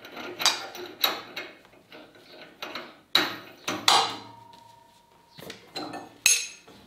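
Metal clinks and knocks of a sliding panel saw's reverse-threaded arbor nut, flange and blade being taken off by hand during a blade change. One knock about four seconds in rings on for about a second.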